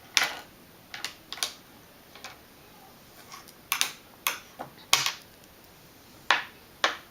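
A spoon clicking and knocking against a bowl while eating rice: about a dozen short, sharp taps at irregular intervals, the loudest around five seconds in.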